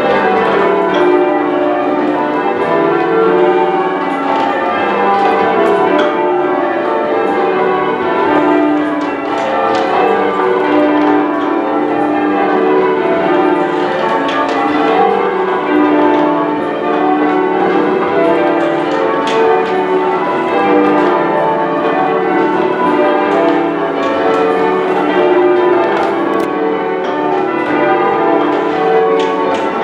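Manchester Cathedral's ring of ten church bells being rung in change ringing, a continuous stream of overlapping bell strikes with no pause.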